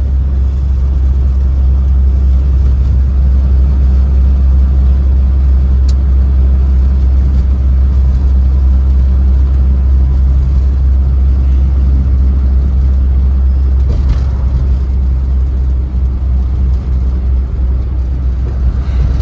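Steady low rumble inside the cabin of a 1956 Studebaker Champion under way: its flathead straight-six engine and road noise while cruising.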